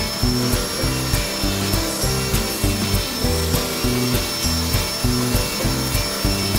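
Electric die grinder with a rotary burr carving into a wooden ashtray: a steady high whine with grinding and scraping on the wood. Background music with a steady beat plays alongside.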